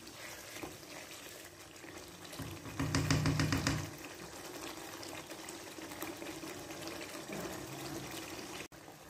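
Thick beef-and-yogurt masala sizzling and bubbling in oil in a frying pan as it is fried down, the stage where the yogurt dries and the oil separates, a sign the pasanda is nearly done. About three seconds in there is a louder burst of noise lasting about a second.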